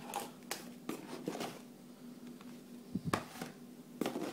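Hands handling cardboard packaging and a boxed router: scattered scrapes, taps and rustles of card and paper, the loudest a little after three seconds in.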